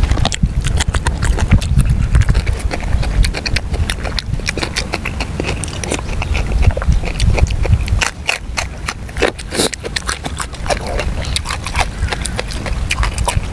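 Wet chewing and lip-smacking of soft stewed pork, with many quick, irregular clicks and squelches over a steady low rumble.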